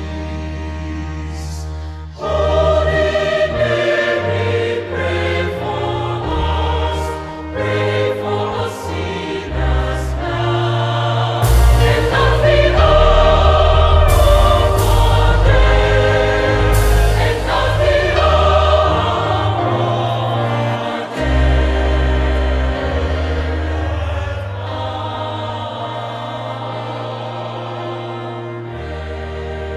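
Choral sacred music: a choir singing over sustained low accompaniment. The voices come in about two seconds in, swell to their loudest in the middle, then ease back to softer held chords near the end.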